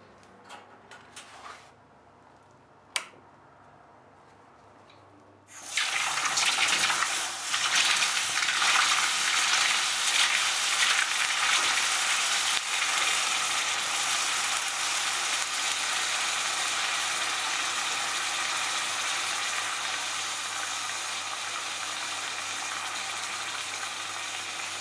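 A few faint clicks and one sharp tap, then about five seconds in a loud sizzling rush starts suddenly and slowly dies away. This is hot 40Kh steel being quenched in a liquid bath during hardening.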